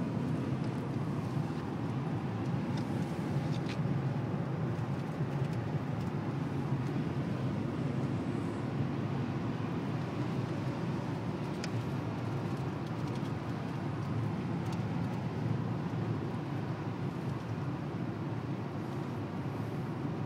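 Steady road noise inside a moving car's cabin: the low hum of tyres and engine at highway speed.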